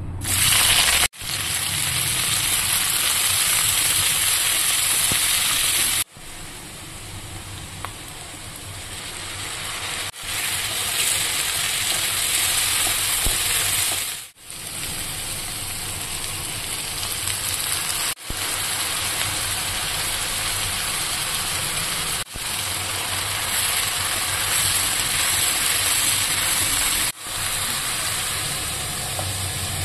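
Chopped red onions sizzling and frying in hot oil in a deep pan, loudest just as they go in and then steady as they are stirred. The sizzle drops out briefly several times.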